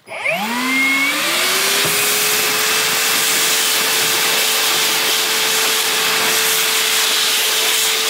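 Metabo HPT MultiVolt cordless shop vacuum switched on at its highest speed, 3. The motor spins up with a rising whine over the first second, then runs steadily with a strong rush of air as the crevice nozzle sucks sawdust off a tabletop.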